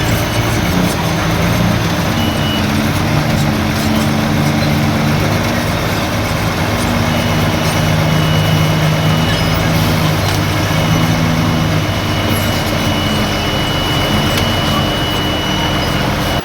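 Diesel engine of heavy earthmoving machinery running steadily, its engine note shifting a little up and down, with a thin high whine joining about seven seconds in.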